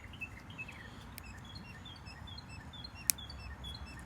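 Small birds chirping over and over in quick short notes over a low background rumble, with a single sharp click about three seconds in.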